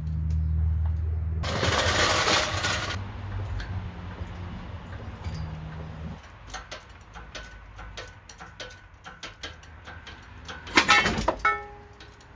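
Metal parts and tools clinking and knocking during engine-hoist work, with a loud cluster of clanks near the end followed by a brief metallic ring. A low hum fills the first half, and a burst of rustling noise comes about a second and a half in.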